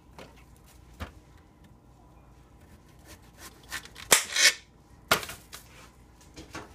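Kitchen knife cutting zucchini on a cutting board: a faint knock about a second in, a loud short slice and knock just after four seconds, and another sharp knock of the knife or vegetable against the board or plate about five seconds in.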